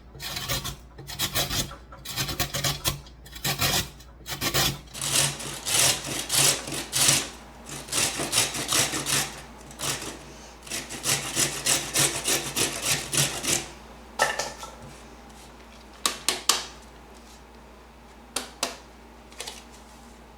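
A carrot being grated by hand on a grater: quick, repeated rasping strokes that stop about fourteen seconds in. A few light knocks follow.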